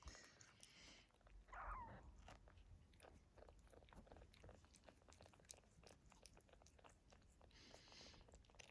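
Faint, wet clicking and smacking of a Sphynx mother cat licking her nursing kittens clean, with a short louder sound about a second and a half in.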